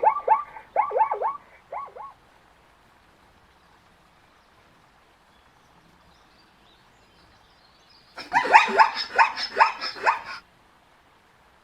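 Zebra calling: a rapid series of short barking calls, each falling in pitch, that stops about two seconds in. After a quiet gap, a louder run of the same calls starts about eight seconds in and lasts about two seconds.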